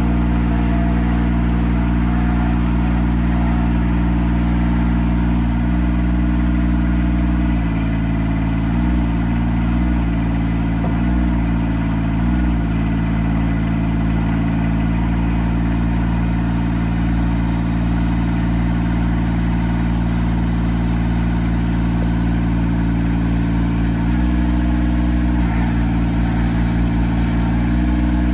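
Engine of an Altec AT37 tracked spider lift running steadily while its hydraulic boom is worked. Its note steps down and back up several times around the middle and again near the end as the load changes.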